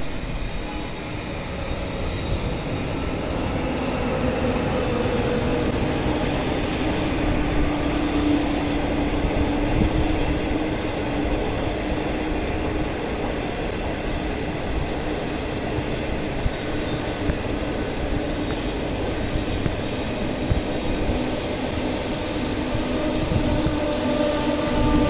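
A passenger train's 25T coaches, hauled by an HXD1D electric locomotive, rolling past at close range. The wheels on the rails make a continuous rumble with a steady humming tone and occasional light knocks.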